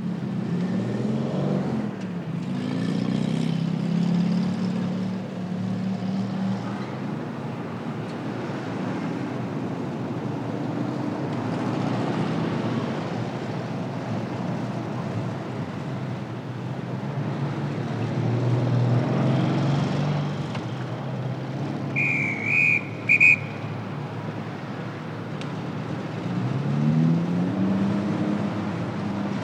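A motor vehicle's engine running, its pitch rising and falling several times. About two-thirds of the way through, a short high tone sounds three times in quick succession.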